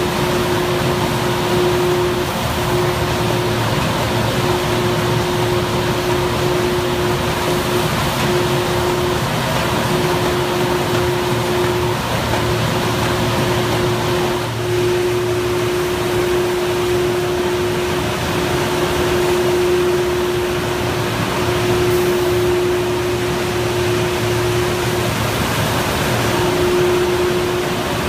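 Martin 1636 flexo folder-gluer running in production: a loud, steady machine drone with a humming tone that cuts out briefly every second or few, as corrugated box blanks feed along the delivery conveyor.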